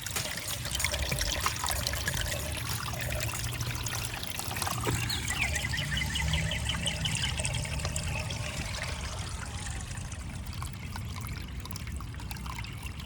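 Water trickling and splashing steadily over the rocks of a small pondless waterfall fed by a 25 W solar water pump.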